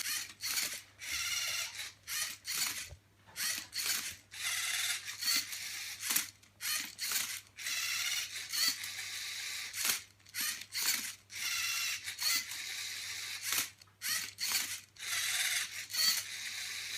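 Lego Mindstorms NXT servo motors of a Rubik's cube solving robot whirring in many short spurts, each a second or less with brief pauses between, as the robot turns and flips the cube. A low steady hum runs underneath.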